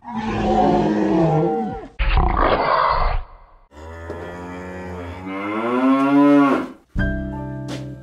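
Two long monster roars, the second rising in pitch, with a harsh noisy burst between them; music with held notes starts about a second before the end.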